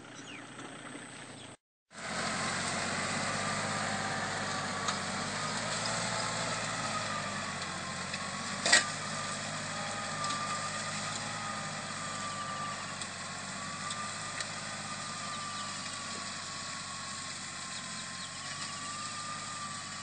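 Farm tractor engine running steadily under load as it pulls a disc harrow through old sugar cane stubble, slowly growing fainter as it moves off. The sound cuts in about two seconds in after a brief dropout, and there is one sharp knock about nine seconds in.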